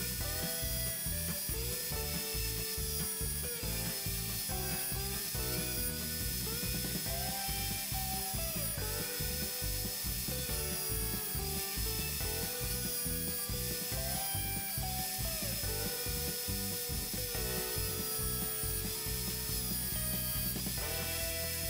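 Electric belt sander running, with a rapid, even ticking throughout. Near the end a steel knife blade is held against the belt to grind its bevel.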